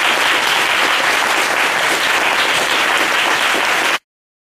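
Audience applauding steadily, cut off abruptly about four seconds in.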